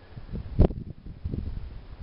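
Wind buffeting the camera microphone in irregular low gusts, with one sharp, louder blast about half a second in.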